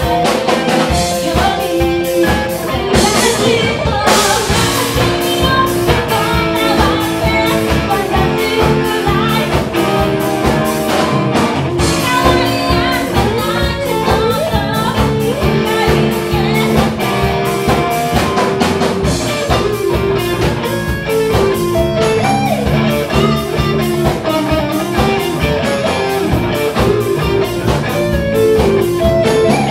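Live rock band playing: electric guitar through an amplifier over a drum kit and bass, with a steady beat.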